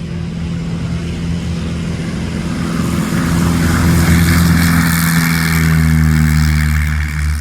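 Piston aircraft engine and propeller running steadily, growing louder through the middle and easing off near the end.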